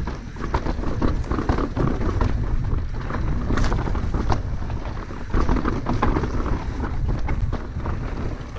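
Mountain bike riding fast down rough rocky singletrack: tyres grinding and crunching over rock, with frequent sharp clacks and rattles from the bike taking hits, over a steady low rumble of wind on the microphone.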